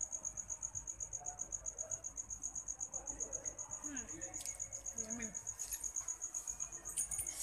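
A cricket chirping steadily, a high note pulsing about five times a second.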